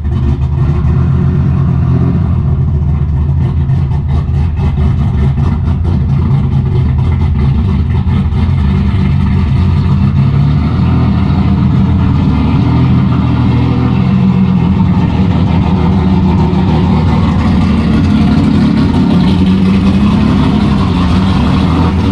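A car engine running steadily at low revs, its pitch swelling slightly a couple of times.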